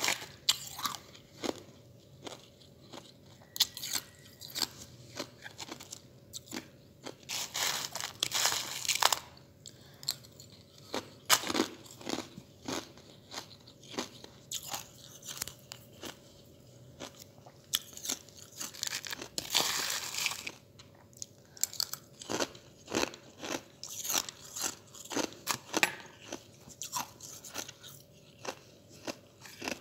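Ice chips being bitten and chewed: many sharp, irregular crunches that come in bursts with short pauses between them.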